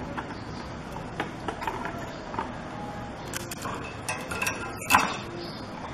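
Scattered light clicks and taps from handling a circuit board and soldering iron during soldering, with one sharper, louder knock about five seconds in.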